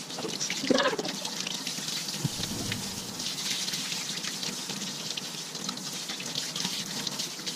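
Kitchen tap running, its stream splashing over a gutted fish and hands into a stainless-steel sink, a steady hiss as the fish is rinsed clean of blood and membranes.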